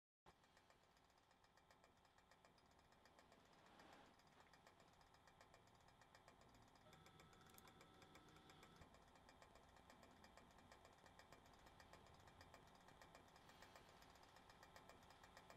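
Near silence: a faint steady hum with a fast, even flutter, which starts suddenly just after a moment of total silence.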